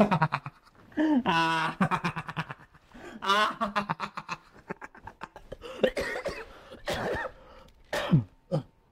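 A man laughing loudly in several long fits of rapid, chopped ha-ha-ha. The fits grow shorter and weaker near the end.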